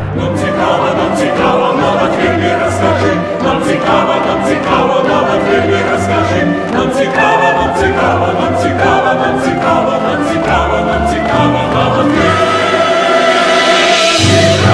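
Stage-musical cast singing together as a chorus over a musical accompaniment with a steady beat, building to a louder, brighter climax near the end.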